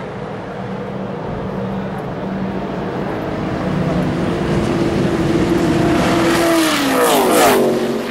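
Sports racing cars running at speed on the track, engines at high revs, with one car growing louder as it approaches and passing close near the end, its engine pitch dropping sharply as it goes by.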